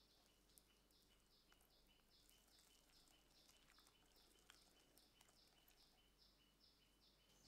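Near silence. A faint high chirp repeats evenly about three times a second, with a few faint clicks.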